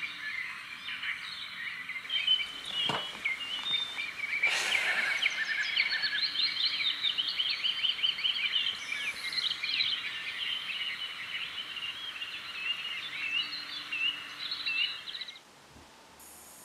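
Many birds chirping and singing together, a dense chorus of short high calls, which cuts off suddenly near the end. A sharp click about three seconds in and a brief rush of noise a little after it.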